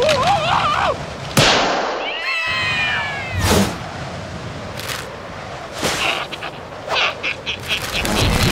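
Cartoon character's squeaky, wavering gibberish voice, then cartoon sound effects: a sharp hit, a falling pitched glide, several more hits and a quick run of clicks near the end.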